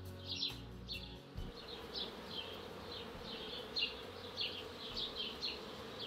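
Bees buzzing in a flowering linden tree, a steady hum, with short high chirps scattered through it.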